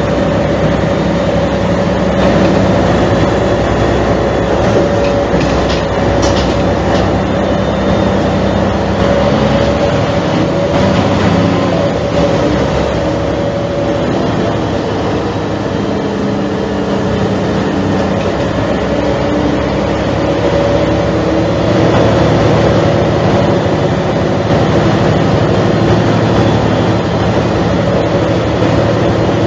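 Mercedes-Benz O345 city bus on the move, its diesel engine running with a steady drone whose pitch rises and falls a few times as it speeds up and slows.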